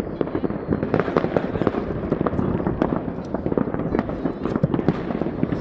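Fireworks going off in rapid succession: dense, overlapping bangs and crackles, several a second, with no pause.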